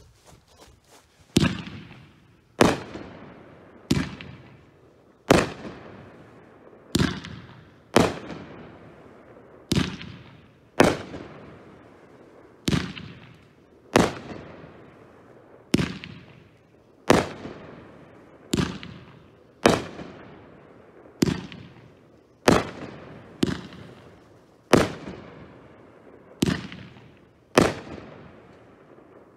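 500 g 25-shot consumer firework cake firing shot after shot, about twenty sharp bangs, one every second and a half or so. Each is a brocade crown shell bursting, and each bang trails off over about a second.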